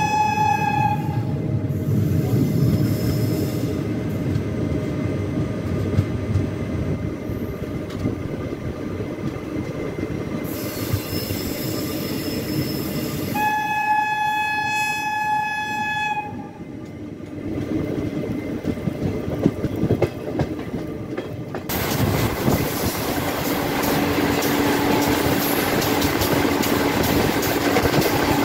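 Train horn blowing twice over the rumble of a train at a station: a blast that ends about a second in, and a second, steady blast of about two and a half seconds roughly halfway through. From about two thirds of the way in, a louder, steady rattling clatter of train wheels on the rails takes over.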